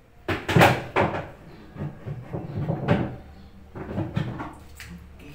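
Irregular knocks and scrapes of hands and parts against the plastic tub of a washing machine as it is cleaned out, loudest in the first second and then coming in uneven clusters.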